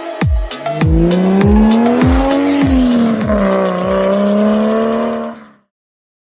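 Single-turbo Toyota 1JZ-GTE straight-six in a BMW E36 pulling away hard, its pitch rising, dipping once and then holding, over music with a heavy, regular kick-drum beat. Everything stops abruptly near the end.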